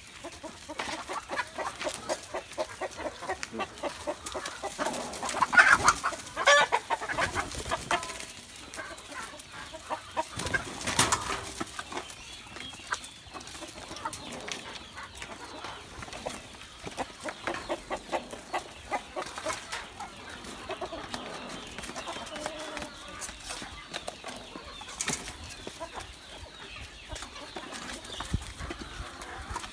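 A flock of Black Australorp chickens clucking and flapping their wings as they crowd a feeder at feeding time, with scuffling and pecking; louder flurries come about six and eleven seconds in.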